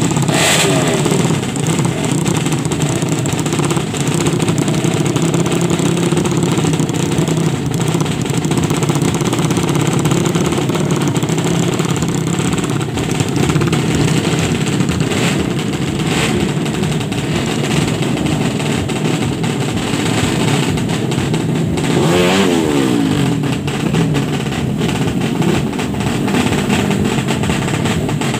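Drag racing motorcycle engines revving hard and continuously, with quick throttle blips that rise and fall in pitch about two-thirds of the way through, and a few sharp cracks.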